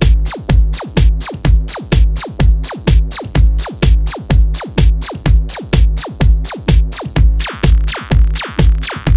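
Techno with a drum-machine kick on every beat, about two a second, and a high hi-hat-like hiss between the kicks. A little past seven seconds in, a brighter, noisier layer joins the beat.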